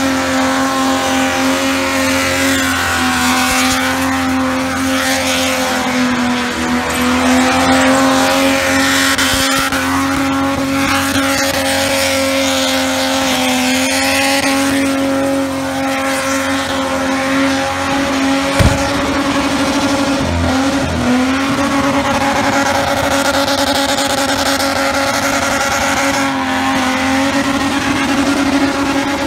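A ute's engine held at high revs through a burnout, its note steady with small dips, over the hiss of the rear tyres spinning and smoking on the pad. A single sharp bang about two-thirds of the way through.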